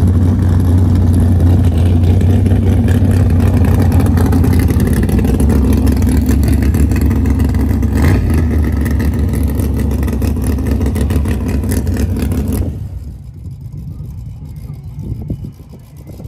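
Small-block Chevy V8 of a 1987 GMC Jimmy drag truck running hard at full throttle down the drag strip. The sound cuts off sharply about 13 seconds in as the throttle is lifted at the end of the run.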